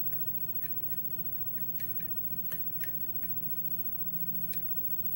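Light, irregular clicks of a short hook pick working the pins of a Yale-keyway pin tumbler lock under tension, about nine over a few seconds. A faint steady low hum sits underneath.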